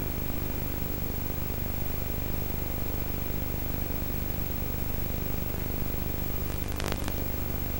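Steady hiss with a low electrical hum, the background noise of an old videotape recording, with one faint click near the end.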